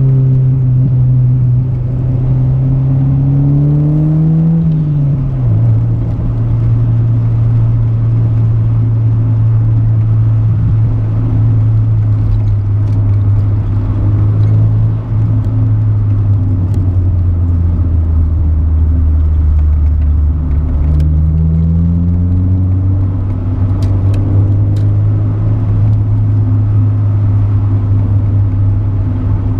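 Honda Civic EG5's D16Z6 1.6-litre SOHC VTEC four-cylinder engine with a Sportex exhaust, running under way. The engine note climbs for the first four seconds, drops sharply, holds steady, sinks lower for a few seconds, then climbs again a little after twenty seconds before settling, with steady road noise underneath.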